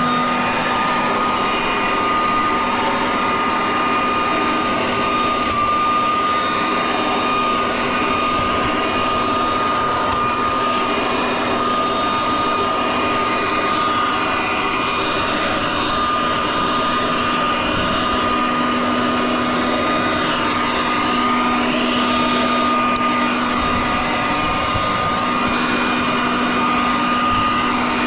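Large vacuum with a built-in shredder running steadily at its maximum setting: a constant high whine over a rushing suction noise.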